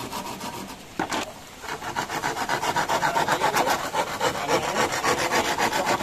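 Hand saw cutting through a split bamboo slat. It makes a fast, continuous rasping that starts about a second and a half in, after a couple of light knocks on the bamboo.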